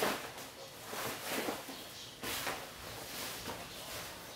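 Cloth rustling as clothes are pulled from a pile and folded, in several short bursts.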